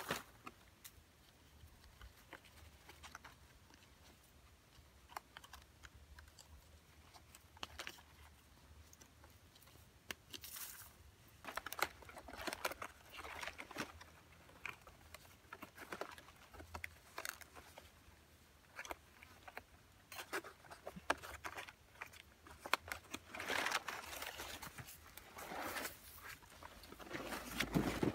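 Large leaves rustling and crackling as they are handled and fastened to a thin wooden strip, with scattered small clicks and snaps; louder bouts of rustling come about ten seconds in and again near the end.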